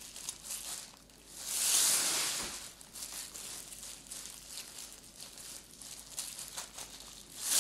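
Thin black plastic trash-bag strips crinkling and rustling as they are twisted and reverse-wrapped by hand into rope. There is a louder, longer rustle about a second and a half in and another near the end.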